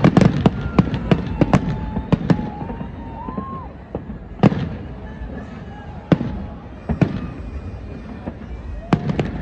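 Aerial fireworks shells bursting in a rapid volley of loud bangs, then single bangs a second or two apart, and another quick flurry near the end.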